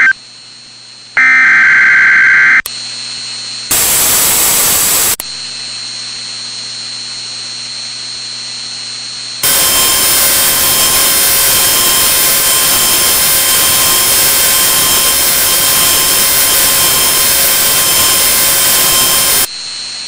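Badly distorted Emergency Alert System broadcast audio: a steady electrical hum, a short loud high tone about a second in, a burst of static near four seconds, then about ten seconds of very loud, harsh static with steady tones running through it before the hum returns.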